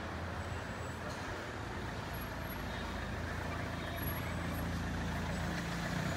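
Street traffic: a steady low engine hum of vehicles over general road noise, growing a little louder in the second half.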